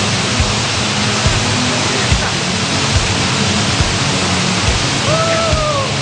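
Steady rushing of a waterfall pouring into its pool, under background music with a slow beat of about one low thump a second. Near the end a single held tone falls slightly in pitch.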